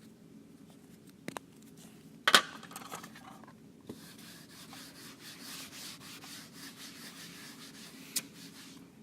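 Rubbing against a dry-erase whiteboard: a small click about a second in, a sharp knock a second later, then about five seconds of steady scratchy rubbing on the board, with a short tap near the end.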